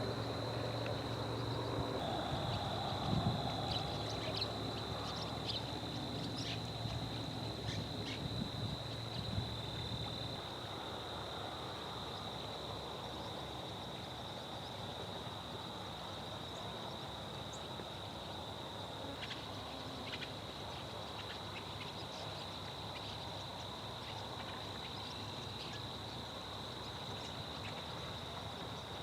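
Open outdoor ambience: a steady high-pitched tone runs throughout, scattered with short chirps. A low motor hum sits underneath and fades out about ten seconds in.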